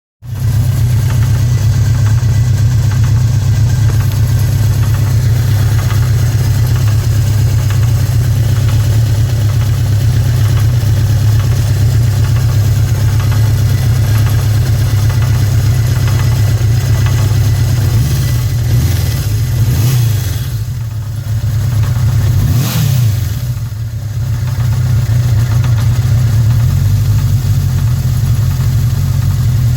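1981 Suzuki GS650G's air-cooled inline-four engine running steadily with a knock in it. Its speed changes briefly a few times between about 18 and 24 seconds in, then it settles back to a steady run.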